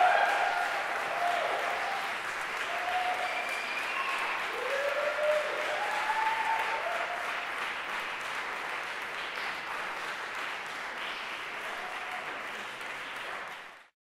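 Audience applauding loudly at the end of a live performance, with whoops and shouts over the first several seconds; the clapping eases off gradually and is cut off abruptly just before the end.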